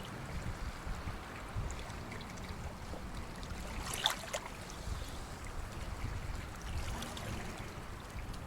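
Small waves washing steadily on a sandy beach, with one brief sharp sound about four seconds in.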